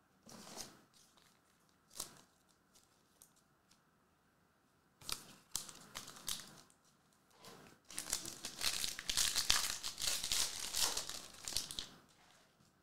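Trading cards being handled with scattered short rustles and clicks. About eight seconds in comes a loud run of crinkling and tearing lasting about four seconds, typical of a foil card pack being torn open.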